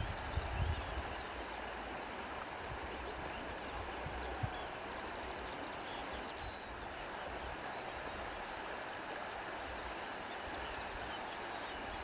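Steady rushing wind noise, with a few short low rumbles as it gusts.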